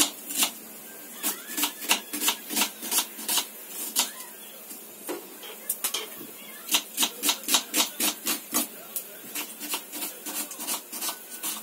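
Kitchen knife chopping an onion on a wooden chopping board: runs of quick, sharp taps, several a second, broken by short pauses.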